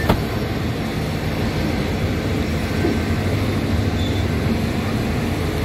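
Diesel-hauled passenger train pulling out of the station and rolling past at low speed: a steady low rumble of the locomotive engine and coaches, with a short click right at the start.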